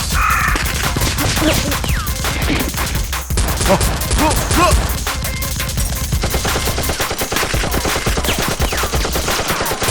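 Dense automatic gunfire: overlapping bursts of rapid shots, unbroken throughout.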